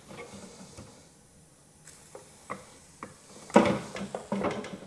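Small metallic clicks and ticks of a hose fitting being threaded by hand onto a washing-machine supply valve. A louder scraping sound comes about three and a half seconds in and lasts about a second.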